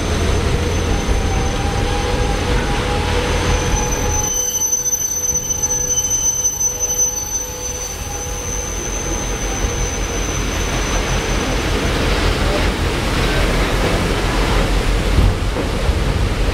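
Kuranda Scenic Railway train running over a curved steel trestle bridge, heard from one of its carriages: a steady low rumble of wheels on rail, with high, thin wheel squeal from the curve that holds for about the first ten seconds and then fades.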